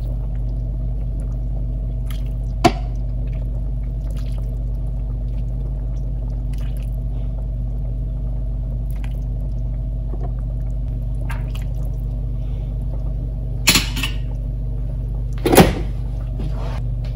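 Steady low mechanical hum, with broth poured from a ladle into a bowl at the start, a sharp click a couple of seconds in, and two louder clattering knocks near the end.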